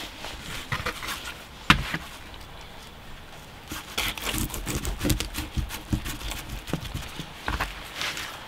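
A sharp knock about two seconds in, then a run of small clicks and scrapes as a fillet knife cuts behind the gill of a walleye down to the spine, and the fish shifts on cardboard near the end.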